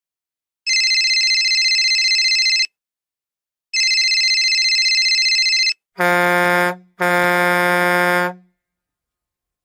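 A meme sound effect: two long, high-pitched electronic beeps, then two lower horn-like honks, a short one followed by a longer one.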